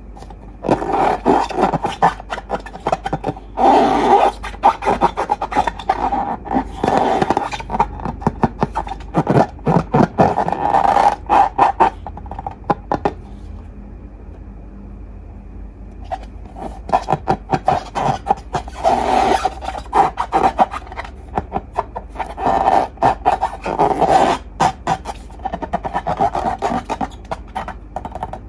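Slime being worked and squished, with sticky crackling clicks and scraping in two long bouts separated by a pause of a few seconds.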